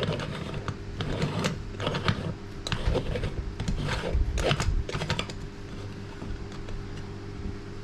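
Moka pot's upper chamber being screwed onto its water-filled base, the metal parts clicking and scraping in irregular bursts that die away about five seconds in, over a steady low hum.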